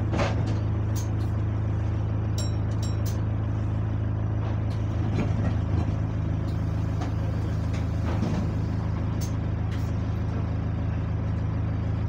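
Bus engine idling steadily while the bus stands at a stop, heard from inside the lower deck. A few short high beeps sound about two and a half seconds in.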